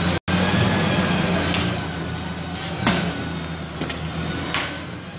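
Street noise with a steady low engine hum and a few scattered knocks; the sound cuts out for a split second just after the start.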